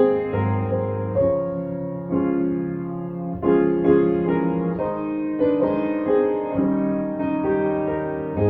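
Piano playing a slow instrumental piece, with new chords struck about once a second and left to ring.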